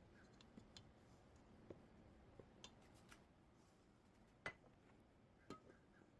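Near silence: faint room tone with a few scattered light clicks and taps, the sharpest about four and a half seconds in.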